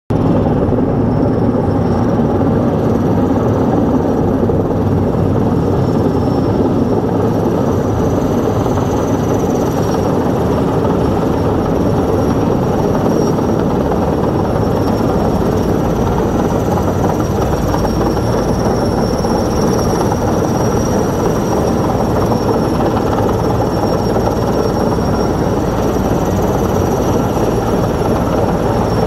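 Sikorsky S-64 Skycrane heavy-lift helicopter hovering low overhead while it draws water into its tank through a hanging snorkel. Loud, steady rotor and twin-turbine noise with a high, slightly wavering turbine whine.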